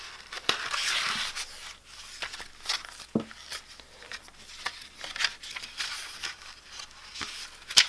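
Paper rustling and rubbing as a passport-size notebook insert is handled and fitted into a traveler's notebook cover, with scattered sharp clicks and taps, the loudest near the end.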